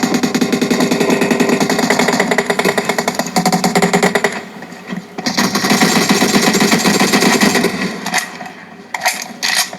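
John Barrel Swing 2 2.1-channel home theatre speakers playing a sound test of fast, rapid pounding beats. The sound drops away briefly about four and a half seconds in, then thins to a few sharp hits near the end.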